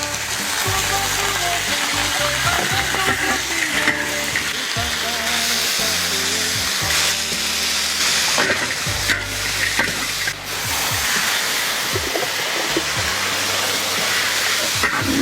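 Duck pieces dry-frying in a hot wok without oil, sizzling steadily as they are stirred, with the sharp clicks and scrapes of a spatula against the wok. Background music plays underneath.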